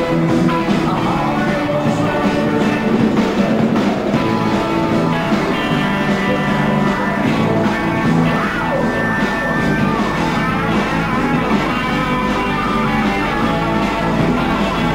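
Live country band playing, with electric guitar, acoustic guitar and drums, on a poor-quality live recording.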